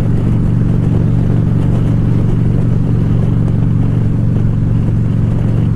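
2014 Harley-Davidson Ultra Classic Limited's V-twin engine running steadily at cruising speed, with road and wind noise over it.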